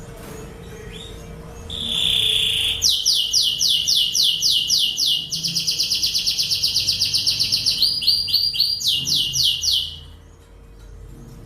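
Lancashire canary singing a long, loud song. It opens with a held note about two seconds in, then runs through rapid trills of quick falling notes that change pace several times, and breaks off about ten seconds in, leaving faint chirps.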